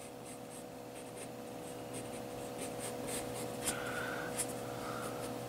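Pen tip scratching on drawing paper in short, quick strokes while outlining the feathers of a sketch, with two sharper ticks around the middle.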